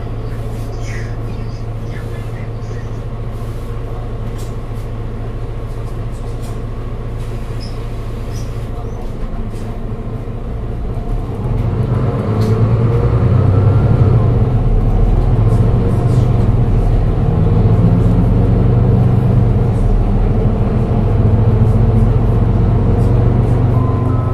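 Mercedes-Benz Citaro 2G Euro 6 city bus's diesel engine, heard from inside the passenger cabin: running low and steady for about ten seconds, then pulling away louder, with a rising whine as it accelerates.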